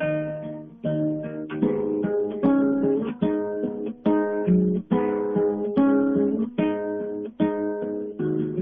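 Background music: acoustic guitar strumming chords, a new chord struck a little more often than once a second and left to ring.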